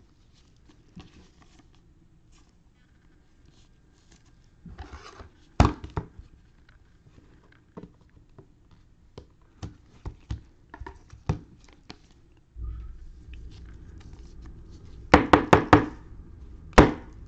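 Trading cards and cellophane pack wrappers being handled on a table: scattered light clicks and taps, a sharp knock about six seconds in, and a quick run of sharp knocks near the end.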